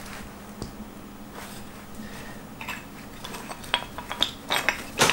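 Sharp metal clicks and clinks from a winch hook and its safety latch being handled and snapped: a few faint ticks, then a quick run of clicks over the last two and a half seconds, the loudest near the end.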